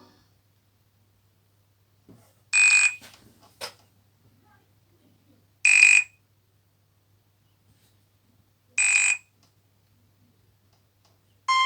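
Nokia C5-00 phone's loudspeaker playing a built-in alarm-style tone: three short, identical high beeps about three seconds apart. A melodic ringtone starts right at the end.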